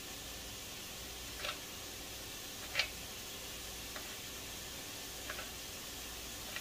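Knife coming down on a cutting board four times, single cuts about a second and a bit apart, over a faint steady background.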